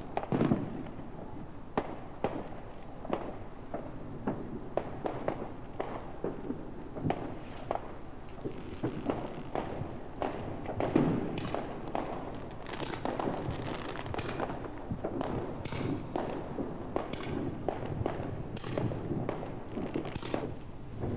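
Fireworks going off: a long irregular run of cracks and pops, with louder bangs just after the start and about eleven seconds in.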